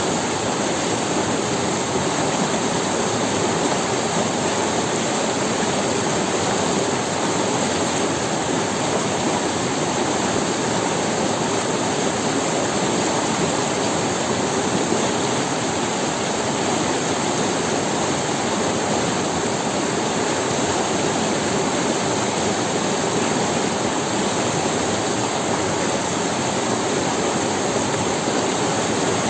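River water rushing and splashing over stones, a steady full-range rush with no breaks.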